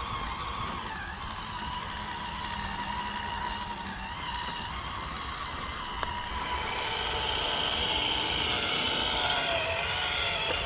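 Electric motor and gear drivetrain of a scale RC rock crawler whining steadily as it creeps over dirt and rock, the whine getting louder in the second half.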